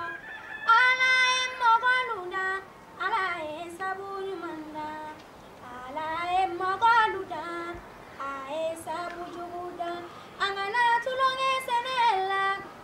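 A young woman singing a Malian song solo and unaccompanied, in phrases of long held notes that bend in pitch, with short pauses for breath between phrases.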